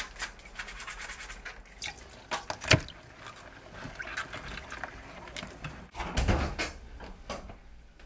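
Water splashing and trickling in a steel kitchen sink as live mitten crabs are scrubbed by hand in a bowl. Rapid scraping clicks fill the first couple of seconds, a single sharp click comes a little before three seconds in, and a low thump comes about six seconds in.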